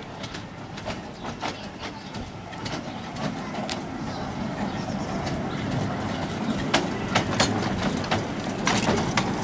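Miniature steam locomotive, a scaled-down Darjeeling Himalayan Railway B class 0-4-0STT, approaching with its carriages. Its wheels click over the rails, and the running sound grows louder as it nears, with the clicks coming more often near the end.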